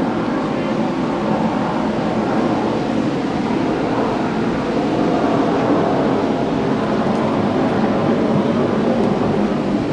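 Steady jet aircraft noise passing over the beach, mixed with the wash of surf and wind.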